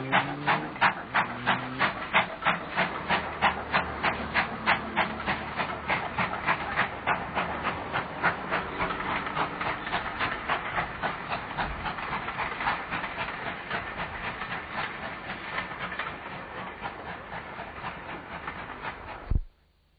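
GWR Castle-class four-cylinder 4-6-0 steam locomotive working hard with a train: an even rhythm of exhaust beats, about three a second, slowly fading as the train draws away. The sound cuts off suddenly near the end.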